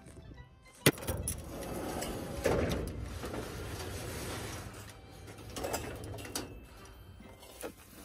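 Sliding door of a steel storage shed: a sharp metallic click about a second in, then the door rattling along its track, followed by smaller knocks and rustling of plastic-wrapped items as things on the shelves are handled.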